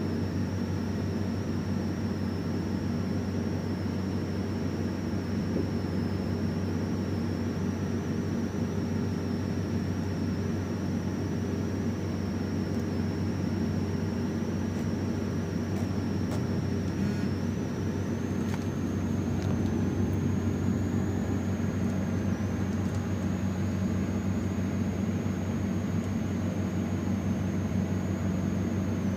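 Steady low hum with a faint high-pitched whine that steps up slightly in pitch about two-thirds of the way through, and a few faint ticks just before that.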